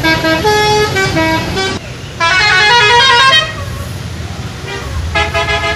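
Indonesian 'telolet' bus horns, multi-tone musical air horns, playing short tunes of stepped notes. One tune plays for about the first two seconds, then a wavering chord sounds for just over a second, and after a pause another tune starts near the end, all over a low rumble.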